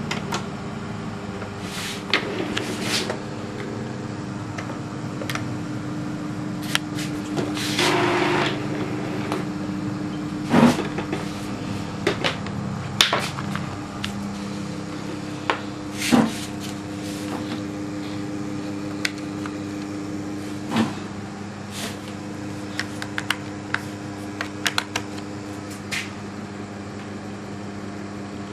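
Printer starting up after its power button is pressed: scattered mechanical clicks and knocks and a brief whirring stretch, over a steady low hum.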